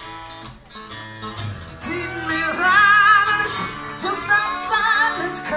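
Rock band playing live with electric guitars and drums; about two seconds in it gets louder as a lead line comes in that bends and wavers in pitch.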